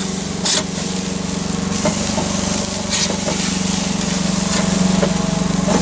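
Burger patties sizzling on a grill grate over a live wood and charcoal fire, with a few sharp clicks of a metal spatula on the grate. A lawn mower engine runs steadily through it.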